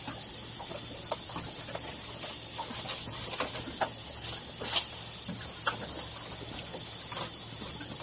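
Water lapping and slapping against a small boat's hull: irregular light ticks and slaps, with a stronger slap a little before five seconds, over a low steady hum.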